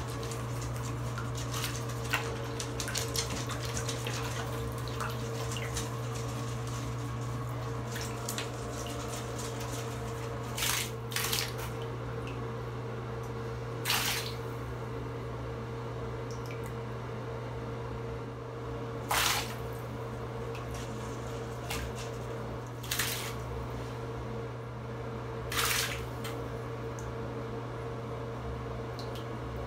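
Bathwater sloshing and splashing as guinea pigs paddle in a shallow tub, with a handful of short, louder splashes in the second half, over a steady low hum.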